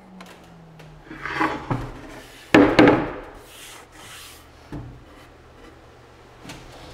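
A hollow plywood shelf box slides, scrapes and knocks on a miter saw's metal table and fence as it is turned and set down, loudest about two and a half seconds in. A low falling hum from the saw blade winding down fades out in the first second.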